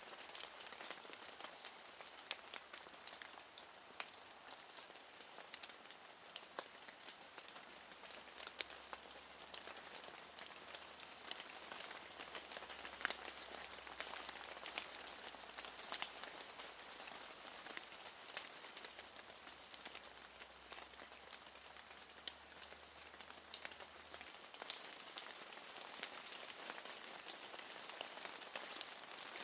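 Steady rain falling, an even hiss with many individual raindrops tapping, as on a window pane.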